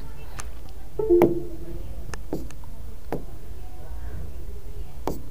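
Steady low hum of room tone with a few scattered light knocks and clicks.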